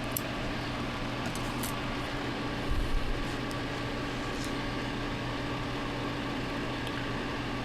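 Steady machine hum with a constant low tone throughout, with a few faint small clicks and a brief low thump about three seconds in.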